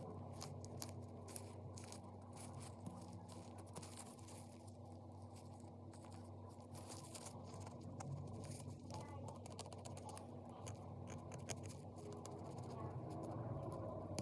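Faint, irregular scratching and ticking as hardened glue is picked and scraped out of a metal brooch's rhinestone cups. A steady low hum runs underneath.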